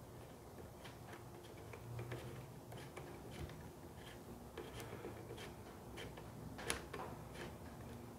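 Faint, scattered light clicks and ticks of a T-handle hex key turning a socket-head bolt into a metal bracket, with one louder click about two-thirds of the way through.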